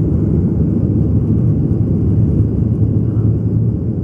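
Steady low rumble of a jet airliner's engines and rushing air heard inside the cabin, with a constant low hum underneath.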